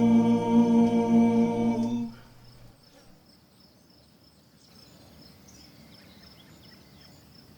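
Male a cappella ensemble holding a hummed final chord, which cuts off about two seconds in. Then faint ambience with high, regularly repeated chirps.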